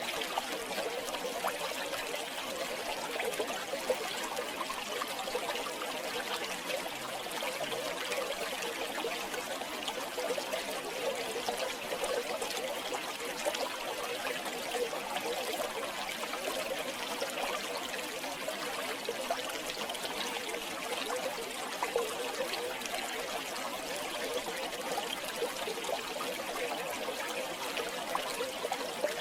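River water flowing and trickling over stones, a steady babbling rush with no change.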